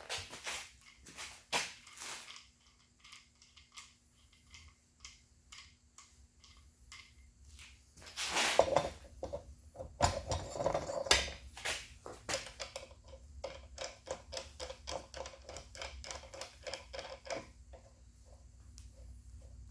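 Metal mini-bike fork parts and hand tools being handled: scattered clicks and knocks, a louder rustling, scraping stretch around the middle, then a run of quick, even clicks.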